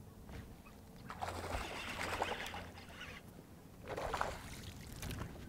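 Hooked bass thrashing and splashing at the water's surface, in two bursts: a long one about a second in and a shorter one near four seconds.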